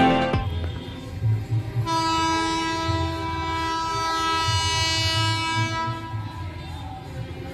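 Horn of a WAG12B electric freight locomotive sounding one long blast of about four seconds, starting about two seconds in and fading at the end, over a low rumble.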